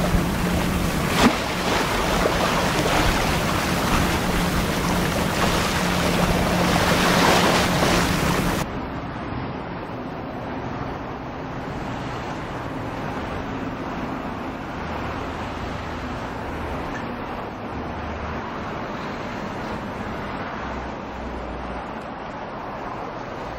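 Wind buffeting the microphone over harbour water, with the steady drone of a Navy yard tug's engine underneath and a single knock about a second in. About eight and a half seconds in it cuts abruptly to a quieter, duller low rumble.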